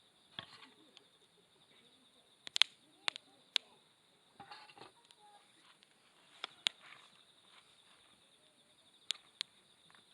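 Wood campfire crackling, with a scattering of sharp pops and snaps. A steady high insect chirring runs underneath.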